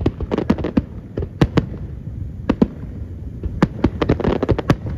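Fireworks display: aerial shells bursting in a rapid, irregular string of sharp bangs over a steady low rumble.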